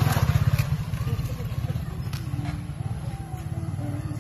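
Motorcycle engine idling: a steady low pulsing rumble, loudest in the first second.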